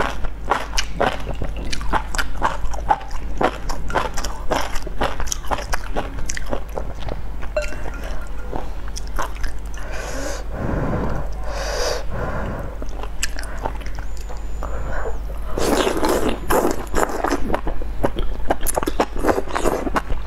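Close-miked eating sounds: rapid wet chewing and lip smacks, broken by longer slurps about ten seconds in and again around sixteen seconds in.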